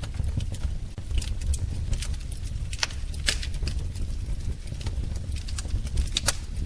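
Wood fire burning in a fireplace: a steady low rumble of the flames with irregular sharp crackles and pops, a few louder pops about three and six seconds in.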